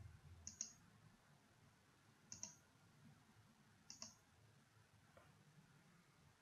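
Computer mouse button clicking, faint: three clicks about two seconds apart, each a quick double tick of press and release, and a fainter click about five seconds in.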